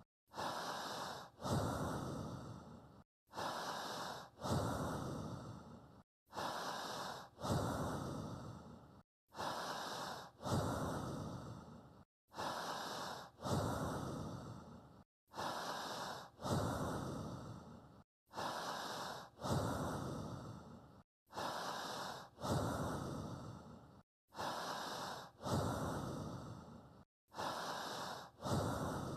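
Human breathing repeating at a slow, even pace, about one breath every three seconds: a brief breath, then a longer one that fades away, each followed by a short moment of silence.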